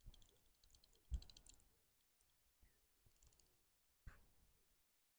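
Regal 4000 spinning reel on a feeder rod clicking in three short bursts of rapid ticks, with a few soft knocks, the loudest about a second in.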